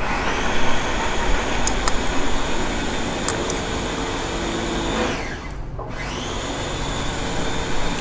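A motor-driven machine starts abruptly and runs with a loud, steady whir. About five and a half seconds in it winds down briefly, then spins back up.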